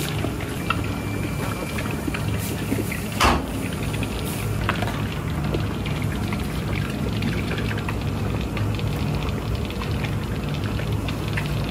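Steady low machine hum under a hissing noise, as from the mill's running machinery and steaming equipment, with a single sharp knock about three seconds in.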